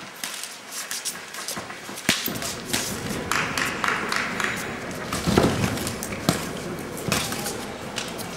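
Sharp thuds and slaps of boxing gloves landing punches, several in quick succession, over crowd noise with shouts.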